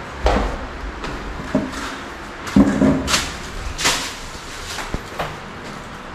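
A few irregular knocks and clattering rattles, the loudest cluster about halfway through, over a steady low background noise.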